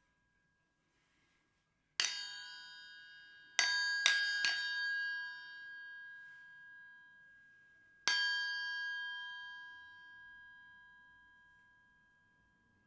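Small toy metal triangle from a children's instrument set struck with its beater: one strike, then three quick strikes, then a last strike, each ringing with a bright, high, shimmering tone that dies away slowly over several seconds.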